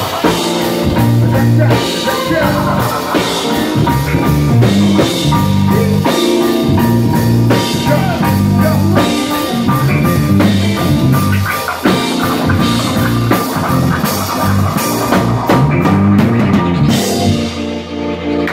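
Live band playing a jazz-rock groove: drum kit, electric bass, guitar and keyboards, with a busy, moving bass line. Near the end the cymbals and drums drop out, leaving a held bass note.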